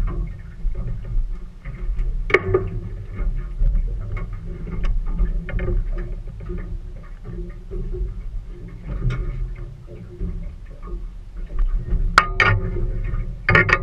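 Sounds of a small boat at sea: a steady low rumble with scattered clicks and light knocks from water and gear against the hull. The sharpest knock comes about twelve seconds in.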